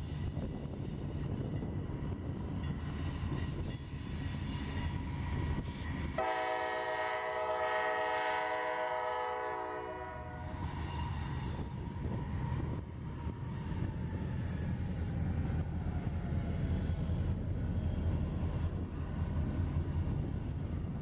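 A CSX freight train passing: the diesel locomotives' engines rumble as they approach, one long horn blast of about four seconds sounds about six seconds in, and then the freight cars roll by.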